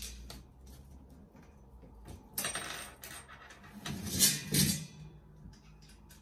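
Metal clinks and rattles from a chrome metal tube cart frame as its bottom joints are tightened with the supplied tool and the frame is handled. There are scattered small clicks, and louder clattering bursts about two and a half and four seconds in.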